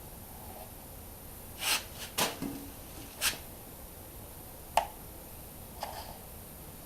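Handling noises: a few short rustling scrapes about two and three seconds in, then one sharp click near five seconds, with fainter taps after it.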